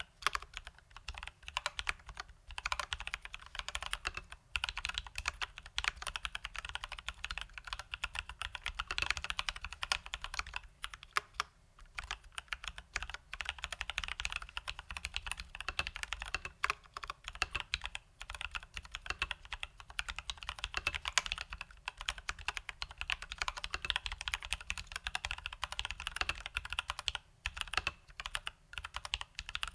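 Fast, continuous typing on a Leopold FC980M mechanical keyboard with Durock T1 tactile switches lubed with Krytox 205g0 and stock keycaps: a dense stream of key clacks with a few brief pauses, around two, four, eleven and twenty-seven seconds in.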